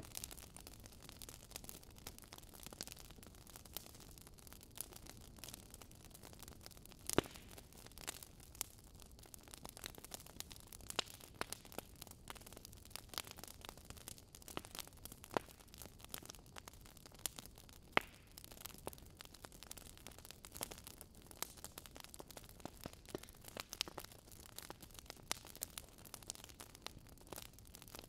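Faint crackling of a fire: irregular sharp pops and snaps over a steady hiss, with a few louder pops.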